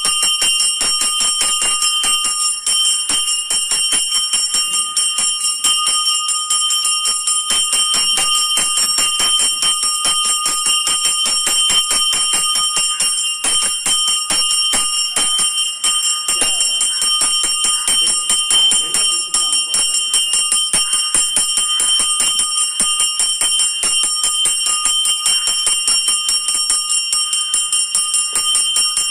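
Temple bells ringing fast and without a break during an aarti offering, many strikes a second over a steady metallic ring.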